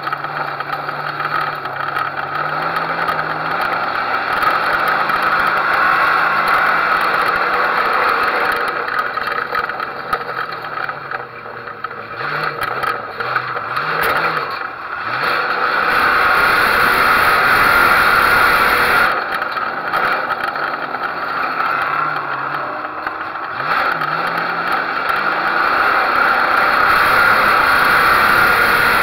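Race car's engine heard from inside the car, its pitch rising and falling as it accelerates and lifts around the track, with the car rattling. It is loudest in two long pulls, about halfway through and near the end.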